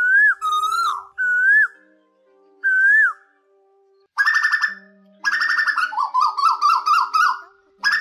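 Asian koel calling: three loud whistled notes in the first three seconds, each rising then dropping, then after a short pause harsher, rapid call notes, including a quick run of short notes about two seconds before the end.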